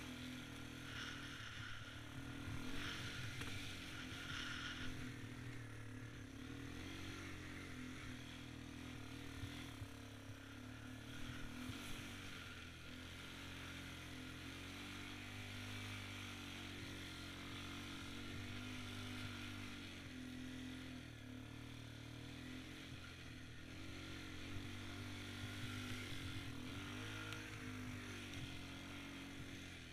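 ATV engine running under throttle, its note rising and falling as the speed changes, over a steady hiss from the tyres through snow and slush.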